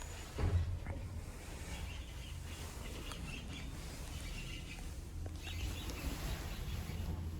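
Xinjiang passenger elevator running with a steady low hum, a thump about half a second in, and faint, scattered high chirps over it.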